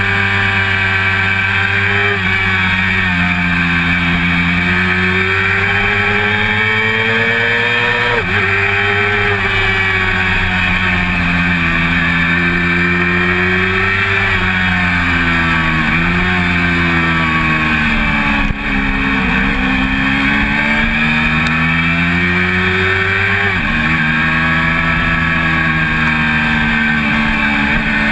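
1988 Honda CBR400RR's inline-four engine at racing revs, heard on board. Its pitch climbs in each gear and drops sharply at each gear change or throttle lift through the corners. There is one short sharp knock about two-thirds of the way through.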